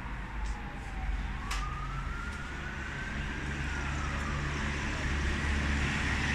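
Steady low rumble of road traffic with a faint single tone slowly falling, rising and falling again, and a sharp click about a second and a half in.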